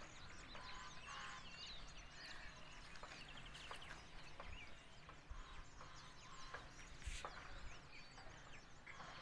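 Faint outdoor birdsong, many small birds chirping, with chickens clucking now and then. A single light knock comes about seven seconds in.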